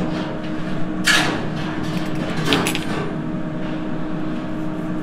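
Steady hum of restaurant kitchen equipment, with two brief handling noises about a second in and again about two and a half seconds in.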